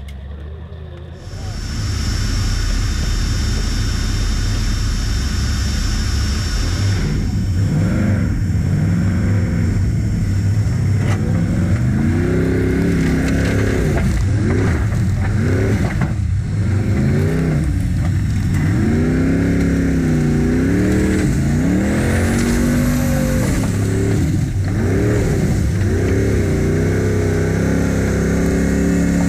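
Formula offroad race car's engine at full race power, cutting in loud a little over a second in, then revving up and down again and again.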